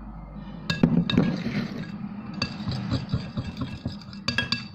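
A utensil clinking repeatedly against a bowl, with short ringing knocks starting under a second in, as water and glue are mixed for slime.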